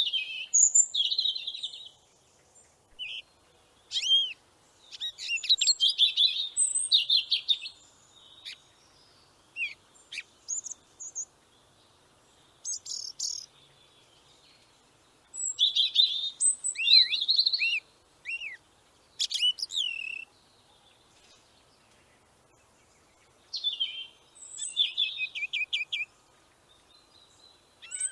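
A songbird singing short, high-pitched phrases of chirps, whistles and trills, separated by pauses of one to several seconds.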